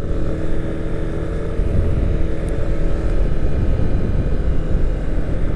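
Yamaha motorbike's engine running steadily at a cruise of about 40 km/h, with wind rush and road noise over the microphone.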